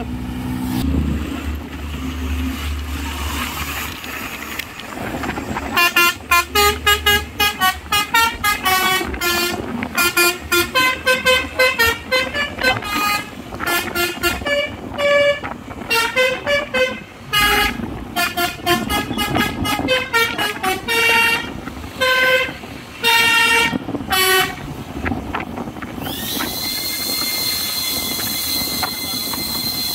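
Telolet musical horn on a cement mixer truck playing a fast tune of short notes, one after another. The tune starts about six seconds in, after a stretch of engine and road noise, and stops after about eighteen seconds. A single long steady horn tone follows near the end.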